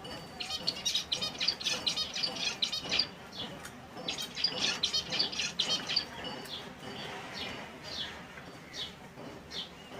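Finches singing and chirping: two dense runs of rapid high chirps in the first six seconds, then scattered single calls.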